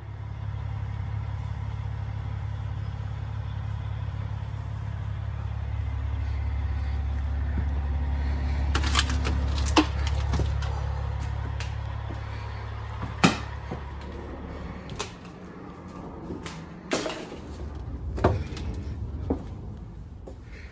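A low steady rumble for about the first fifteen seconds. From about nine seconds in come scattered sharp knocks, clicks and creaks: footsteps on debris and loose fittings in the aisle of a wrecked passenger rail car.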